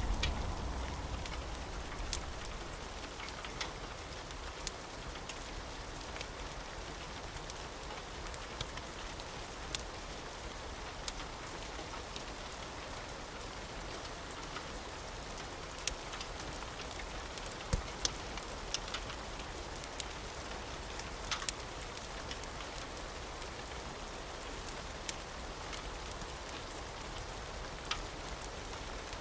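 Steady rain with scattered sharp ticks and pops over it; a low thunder rumble dies away in the first second.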